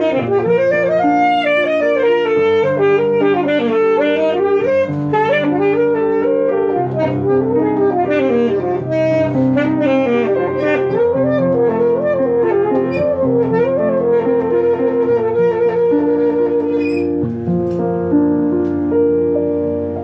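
Alto saxophone playing a flowing melody over grand piano accompaniment, settling into long held notes near the end.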